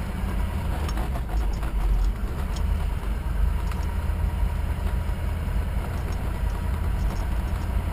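Low, steady rumble of a pickup truck's engine and tyres heard from inside the cab while it drives slowly along a dirt trail, with faint scattered rattles and ticks.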